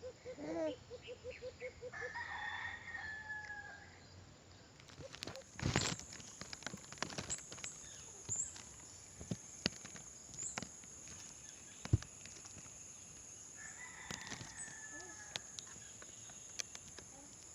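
A bird calling: a quick run of clucks at the start, a harsh call about two seconds in and another about fourteen seconds in, with scattered sharp clicks and knocks in between.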